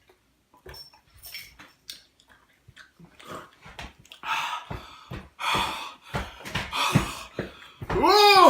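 A person's wheezy, hissing breaths and gasps, coming harder and louder after a few seconds, then a loud voiced groan that rises and falls in pitch near the end.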